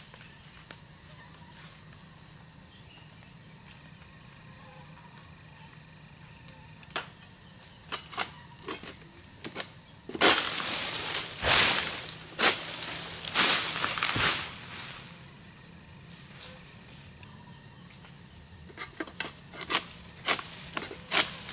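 Insects buzzing steadily at a high pitch. A string of clicks and several loud scraping, rustling bursts come about halfway through and again near the end.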